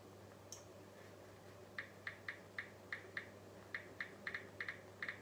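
Smartphone keyboard clicks as someone types with their thumbs: a run of short, light ticks, about three a second, starting a couple of seconds in, after a single sharper click. A steady low electrical hum runs underneath.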